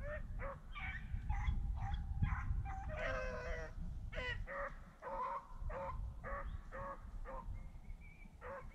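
Rabbit-hunting dogs giving voice on a chase: a run of short yelping calls, two or three a second, with one longer falling cry about three seconds in. A low rumble underneath fades out about halfway through.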